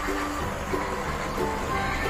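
Background music: soft held tones with a few short notes.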